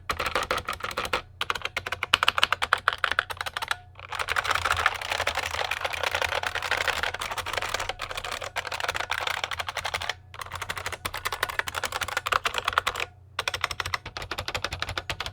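Fast, continuous typing on a modded clicky mechanical keyboard: a dense run of key clicks, broken by a few short pauses.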